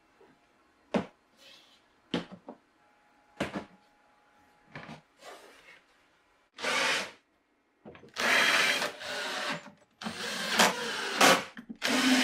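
Laminated plywood parts knocked into their slots, a few sharp wooden knocks about a second apart. In the second half, a cordless drill drilling into laminated plywood in several short runs with pauses between.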